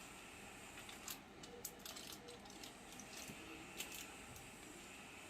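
Faint, scattered light clicks and rustles from handling a small bowl of yogurt and coffee powder while a face pack is being prepared.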